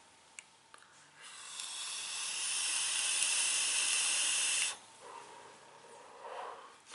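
A long drag on a box-mod e-cigarette: a steady hiss of air and vapour drawn through the firing atomizer for about three and a half seconds, cutting off suddenly, followed by a softer breathy exhale of the vapour cloud.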